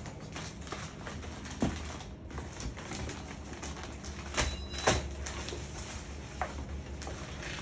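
Plastic air-column cushion wrap crinkling and rustling as the wrapped monitor is handled, with a few sharp taps and knocks; the loudest comes about five seconds in.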